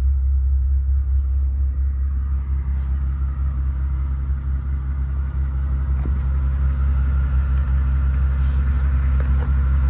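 Mercedes-AMG G65's twin-turbo V12 idling, a steady low rumble.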